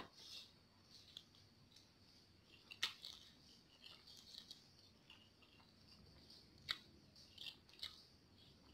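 Faint eating sounds: small clicks and smacks as a mouthful of instant noodles is slurped in and chewed, with a few sharper clicks, the clearest about three seconds in and near seven seconds.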